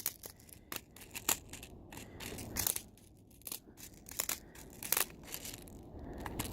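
Irregular crunching and rustling close to the microphone: a string of sharp crackles at uneven intervals over a low rumble of handling noise.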